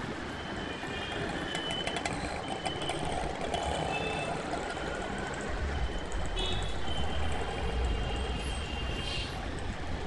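Busy city street traffic: a steady wash of vehicle noise, with a heavy vehicle's low rumble building about halfway through and fading near the end. Short high-pitched tones come and go over the top.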